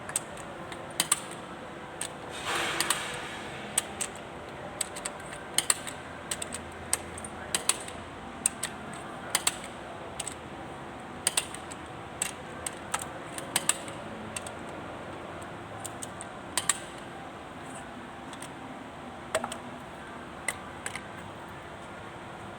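Irregular sharp metallic clicks and clinks of hand tools working on tractor engine parts, with a short scraping rush about two and a half seconds in.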